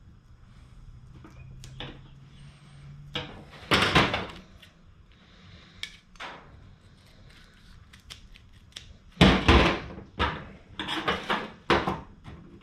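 Hand-work at a workbench: scattered knocks, taps and clicks as a knife blade, scissors and tape are handled, picked up and set down, busiest about four seconds in and again over the last few seconds. A low steady hum sounds under the first few seconds.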